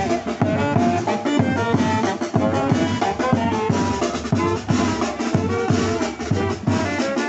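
Live marching band playing: saxophones carry a melody over a steady beat on a bass drum and snare drum.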